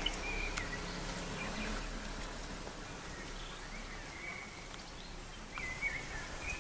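Outdoor ambience under rain clouds: a steady hiss with a few sharp ticks, and short high chirps from a distant bird now and then.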